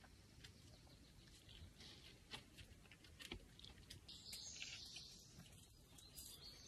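Near silence: faint outdoor ambience with scattered small clicks and faint high bird chirping starting about four seconds in.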